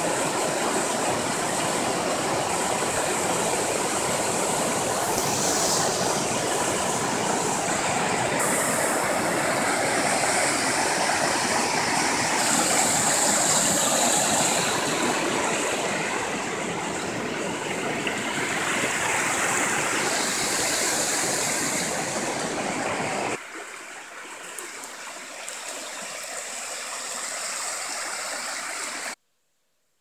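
Water rushing over a rocky cascade: a steady full rush of white water. About 23 seconds in it drops to a much softer rush, then cuts off abruptly near the end.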